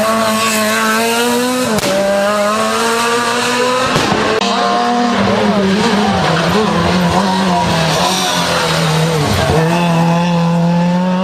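Rally cars, a Renault Clio and then a Fiat Punto, driven hard through hairpins with engines at high revs. The pitch drops sharply about three times at gear changes or lifts off the throttle, then climbs again as they accelerate away.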